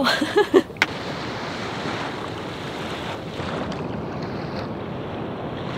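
Steady wash of small waves on a sandy shore, with wind blowing across the microphone.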